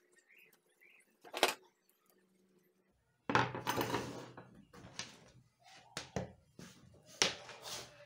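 Handling noise: a sharp knock, a burst of rustling, then a run of clicks and knocks as an electric soldering iron is handled and laid down on a wooden workbench.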